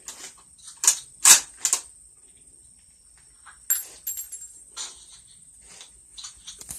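A string of sharp metallic clicks and knocks at irregular intervals, the loudest pair about a second in, over a steady high chirring of insects.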